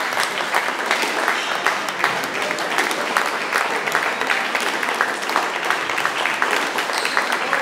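Steady, dense clatter of sharp knocks and claps echoing in an indoor squash hall, from squash balls striking racquets and walls, with crowd noise underneath.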